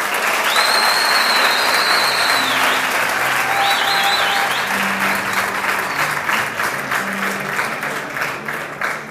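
Crowd applauding, with a couple of high whistles in the first half; the applause thins out into scattered claps near the end.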